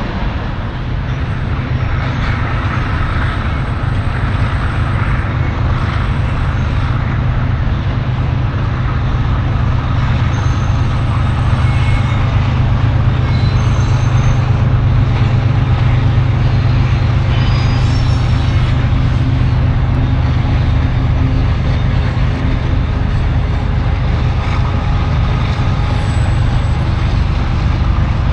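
Freight train rolling across a steel girder viaduct: a steady low rumble from its cars, swelling a little in the middle.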